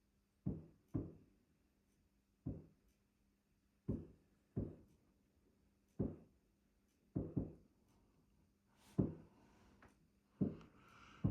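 Distant fireworks heard from indoors: about a dozen muffled bangs, spaced irregularly roughly a second apart, each fading quickly, with a faint crackling hiss in the last couple of seconds.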